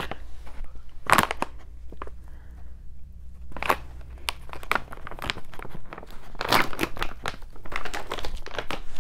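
Plastic dog-treat pouch crinkling and rustling as it is handled and torn open, irregularly, with louder crackles about a second in and again around six to seven seconds.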